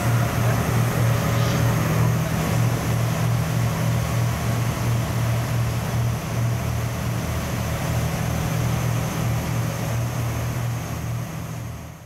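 Ship's engine running with a steady low hum of several pitches, over a continuous hiss of wind and sea. It fades out near the end.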